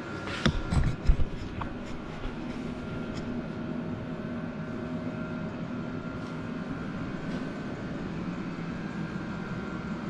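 A few sharp knocks in the first couple of seconds, over a steady mechanical hum that holds a few constant tones throughout.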